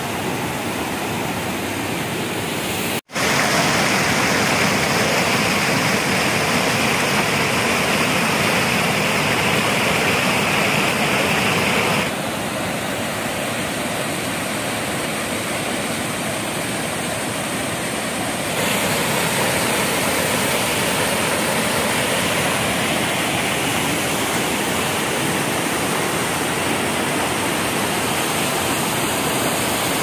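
Floodwater of a monsoon-swollen waterfall rushing over rock ledges: a steady, even rush of water, with a momentary drop-out about three seconds in.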